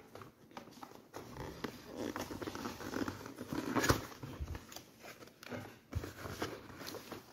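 Hands handling a cardboard box, with the card sliding and rubbing and scattered light taps, and one sharp knock about four seconds in as the end flap is opened.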